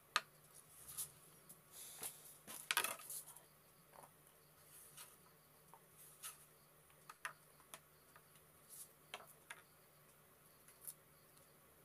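Kitchen knife chopping green capsicum and scraping on a wooden chopping board: irregular light knocks and taps, with a louder scrape about three seconds in.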